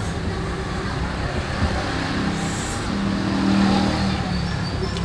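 A motor vehicle's engine running close by, its hum growing louder to a peak about three and a half seconds in and then easing off, as if passing.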